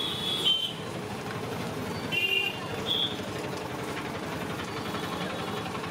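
Busy street noise with traffic running steadily and three brief high-pitched horn toots in the first three seconds.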